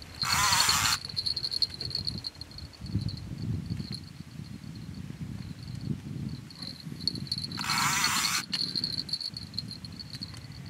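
Insects trilling steadily at a high pitch, cricket-like, over a low rumble. Twice, once right at the start and again about eight seconds in, a loud harsh rasping noise lasts about a second.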